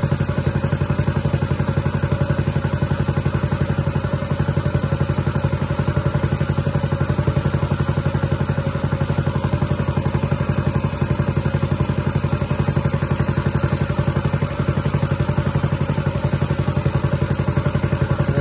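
Small single-cylinder air-cooled engine on a walk-behind garden tractor running steadily with an even firing beat, warming up after a cold start in freezing weather.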